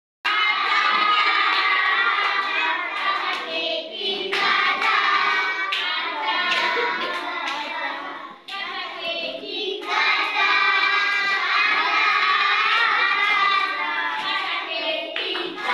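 A group of young children singing together in chorus, with hand clapping running through the song.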